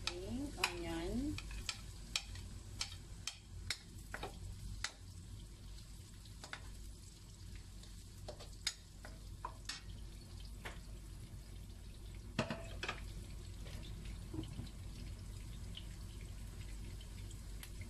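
Garlic and diced onion frying in a non-stick pan with a faint steady sizzle, stirred with a spatula: sharp clicks and scrapes of the spatula against the pan come in clusters during the first five seconds and again around the middle.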